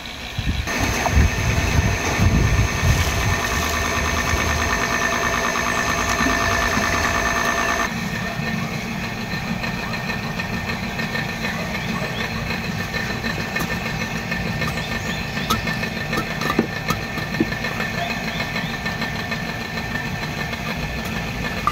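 An engine starting and running steadily, rough and loud for the first few seconds. Its sound changes abruptly about eight seconds in and then carries on as a steady drone.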